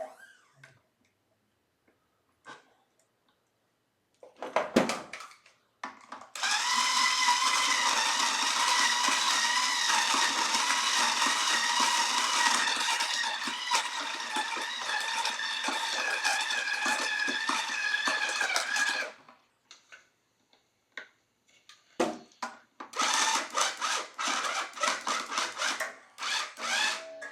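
Small power drill running steadily for about twelve seconds with an even whine, then again in shorter, choppier spurts near the end, winding new strings onto the guitar's tuners.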